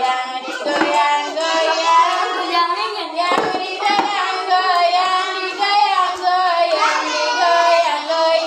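A group of young children singing together, with a couple of hand claps about three and a half and four seconds in.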